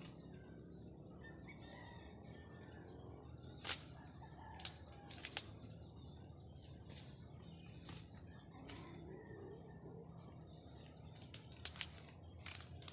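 Scattered sharp snaps and rustles of twigs and leaves as a ripe jackfruit is pulled from its tree and carried through the undergrowth, the loudest snap about four seconds in and a quick run of them near the end, over a faint steady outdoor background.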